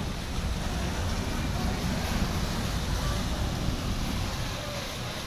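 High-speed passenger ferry MV Dumai Line 8 moving past close by: a steady low rumble of its engines mixed with water washing along the hull and wind on the microphone.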